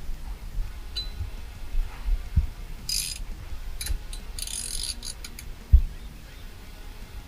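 Hand work on a truck's steering column and turn signal mechanism: two short, high ratchet-like rasps about 3 and 4.5 seconds in, a few small clicks, and two dull knocks, the louder one near the end.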